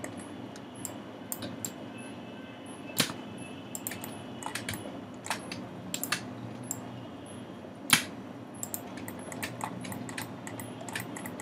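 Irregular clicking from a computer mouse and keyboard, with two louder clicks about three and eight seconds in, over a low steady hum.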